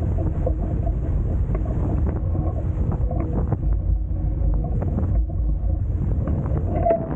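Wind buffeting the microphone and water rushing past the hulls of a Hobie Tiger F18 catamaran sailing at speed: a dense, steady, rumbling rush with occasional short slaps of water.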